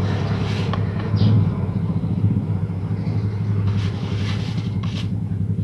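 A steady low hum, with a few faint rustles.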